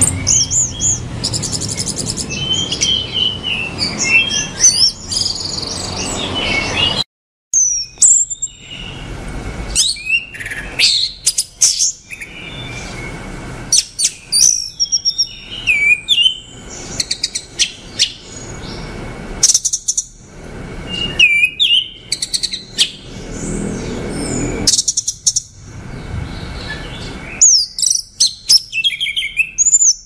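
Orange-headed thrush singing: a run of varied, rich whistled and warbling phrases separated by short pauses. The song briefly cuts out about seven seconds in.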